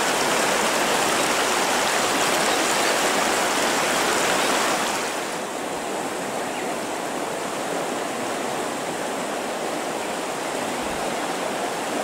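Shallow river rushing over a rocky riffle, a steady hiss of running water. About five seconds in it drops to a softer, duller rush.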